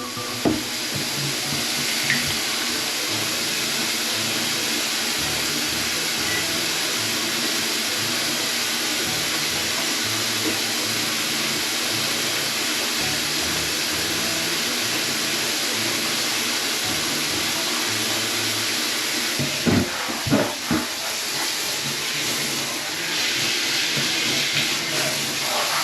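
Steady rain falling, an even hiss with a few knocks and thumps about twenty seconds in.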